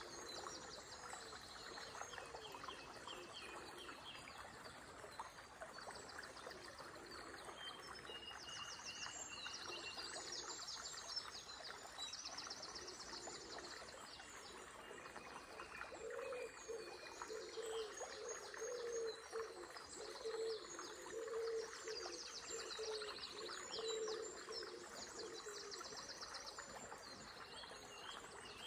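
Songbirds singing high trills and chirps over the steady rush of flowing river water. About halfway through, a lower call repeats over and over for several seconds.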